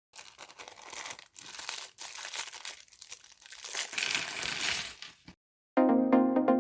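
LEGO set packaging handled and opened, irregular crinkling and rustling with short breaks, then stopping. Loud electronic music with a steady beat starts near the end.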